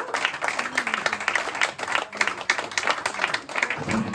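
Audience applauding, a dense patter of hand claps with a few voices among it. A low steady hum comes in just before the end.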